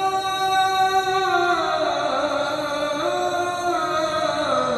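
A man's solo voice chanting an Islamic tasbih (glorification of God), drawing out one long ornamented note. The pitch is held steady at first, then slides down in several steps.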